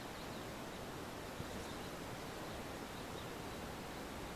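Quiet riverside ambience: a steady, even hiss with faint, scattered bird chirps, and one small click about a second and a half in.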